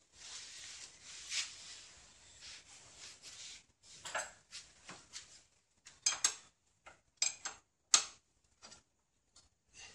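Hand tools and small metal parts being handled: a stretch of rustling, then a run of sharp metallic clinks and clatters, the loudest about six, seven and eight seconds in. No engine is running.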